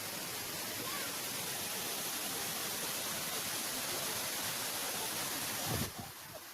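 Tirtosari waterfall's falling water, a steady even rush across low and high pitches. Near the end a low thump, after which the sound drops abruptly to a quieter hiss.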